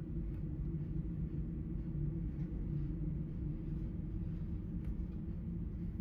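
Steady low drone of shipboard machinery, with a couple of faint clicks, one just after the start and one near the end.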